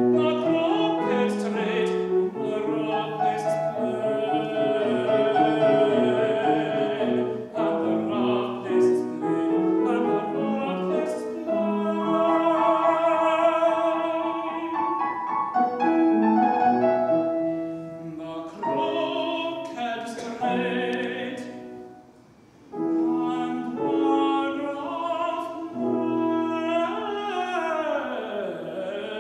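A young man singing classical music in a trained operatic voice, accompanied by piano. The music drops off briefly about three quarters of the way through, then resumes, with a quick falling run of notes near the end.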